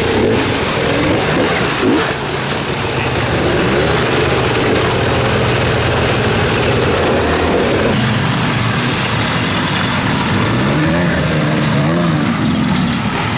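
Enduro dirt bike engines revving hard under load as the bikes are pushed and ridden through mud and water. Near the end, one engine revs up and down in a few quick swells.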